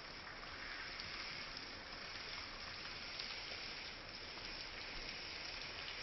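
Stream water flowing and babbling steadily over rocks, with small splashes and trickles.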